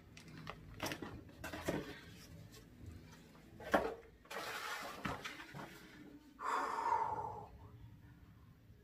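Handling noises: a plastic bag of small parts and paper being rustled, with a few light knocks, and a longer hissing rustle about six and a half seconds in as the instruction sheet is opened.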